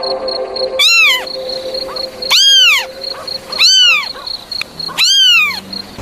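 A cat meowing four times, about a second apart. Each meow is a short, high call that rises and then falls in pitch.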